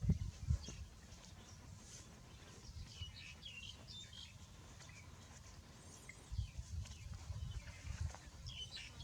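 Small birds chirping in short, high calls, a cluster about three seconds in and more near the end, over bursts of low rumble at the start and again from about six seconds in.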